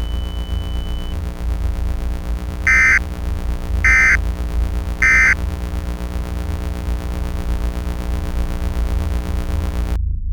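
Three short bursts of Emergency Alert System SAME data tones about a second apart, the end-of-message signal that closes an alert, over a steady low hum and rumble. The higher part of the hum cuts off near the end, leaving only the deep rumble.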